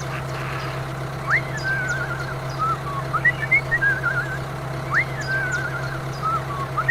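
A steady engine-like hum from the mini tractor runs throughout. Over it, a bird-like whistled call sounds twice, a quick rising note followed by a warbling trill.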